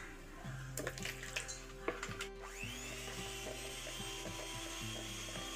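A few light knocks, then about two and a half seconds in an electric hand mixer switches on: its motor whines up to speed and runs steadily, beating the milk-and-oil mix into egg-yolk cake batter.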